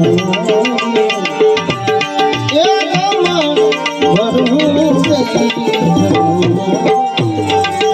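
Instrumental devotional music: tabla playing a steady, dense rhythm under a wavering melody line, with a steady drone tone held throughout.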